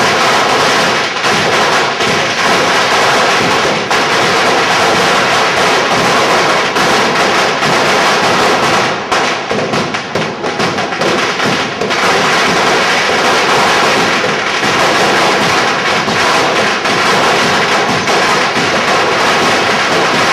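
A dense barrage of firecrackers and fireworks going off close by, loud enough to be described as 'soooo loud'. The bangs follow so closely that they run together into one continuous crackle, which eases briefly about halfway through.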